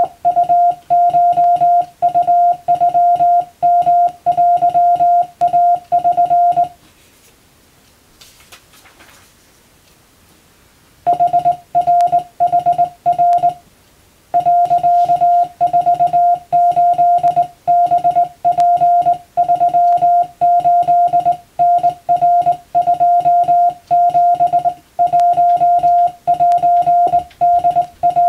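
Hand-keyed Morse code (CW): a steady mid-pitched tone switched on and off in dots and dashes, sending Japanese wabun telegram text for receiving practice. The keying stops for about four seconds a quarter of the way in, with a faint brief rustle in the pause, then resumes.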